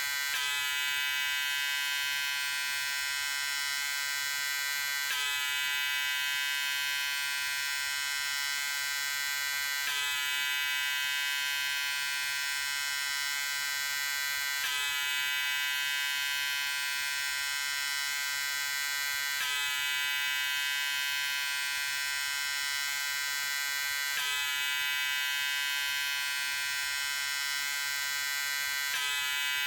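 Electric shaver running with a steady buzz, its tone shifting slightly about every five seconds.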